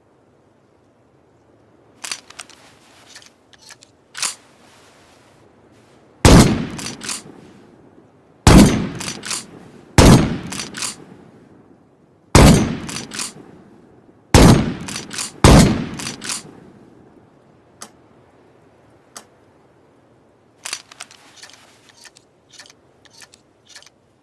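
Homemade shotgun sound effect: six loud, sharp bangs spread over about ten seconds, each trailed by a few quick clicks. Lighter clicks and knocks come before and after the bangs.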